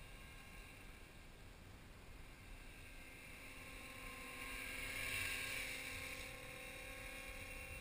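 T-Rex 250 electric RC helicopter flying, its motor and gears whining in several steady tones over the rush of the rotor, growing louder about five seconds in as it comes close.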